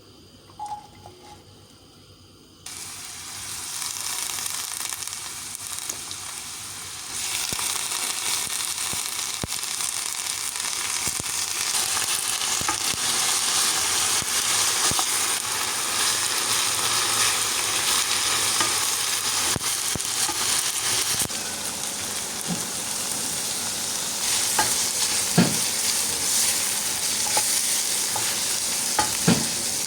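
Food sizzling in a frying pan: a steady crackling hiss that starts suddenly a few seconds in and gets louder a few seconds later, with a few sharp clicks near the end.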